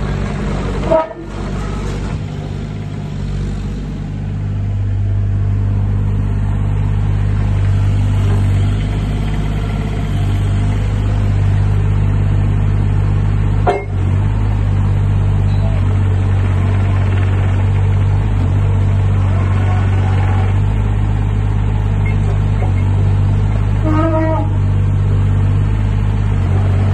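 2016 JCB 8030 ZTS mini excavator's diesel engine running steadily under hydraulic load as the machine slews and works its boom, the engine note rising and getting louder a few seconds in. A short tonal toot sounds about a second in and again near the end.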